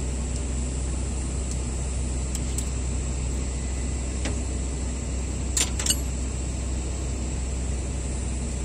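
Steady low engine rumble of machinery running, with a few sharp metallic clicks of hand tools on the valve gear, the loudest two just before the middle.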